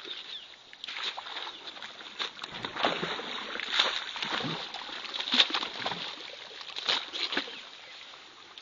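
Footsteps in sandals squelching through wet mud and splashing in shallow water, irregular and uneven.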